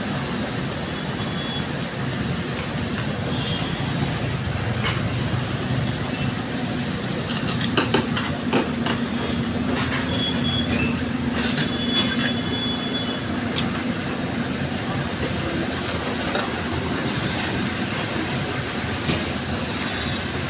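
Excavator running with a steady low drone, with scattered metal clanks and a few short high squeals.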